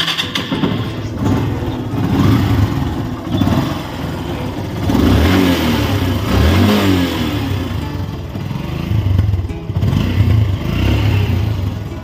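Air-cooled Yamaha motorcycle engine running and being revved up and down a few times on fresh engine oil, firing smoothly.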